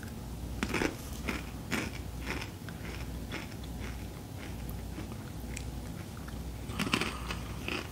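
Crunchy rolled tortilla chips, Takis-style, being bitten and chewed: a run of sharp crunches, with a denser, louder cluster of bites near the end as a second person starts eating.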